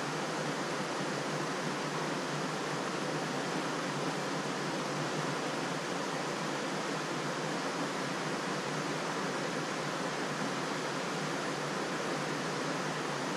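Steady rushing of river water, a constant even wash with no breaks.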